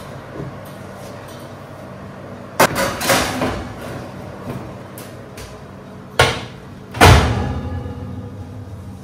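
A metal baking tray clatters as it is slid onto the rack of a Beko oven, then a sharp knock and a heavy thud about seven seconds in as the oven door is shut, over a steady low hum from the running oven.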